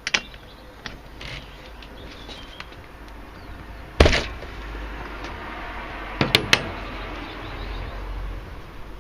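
Clicks and knocks of hand tools and metal parts being handled while the spark plug is taken out of a Stihl MS180 chainsaw: a sharp knock about four seconds in, and two quick clicks a little after six seconds.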